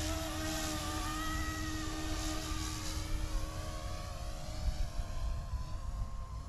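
A YUXIANG F09-S RC helicopter in flight, its brushless main and tail motors and rotors whining, with the pitch wavering as it manoeuvres. The whine grows fainter after about three seconds. Wind rumbles on the microphone underneath.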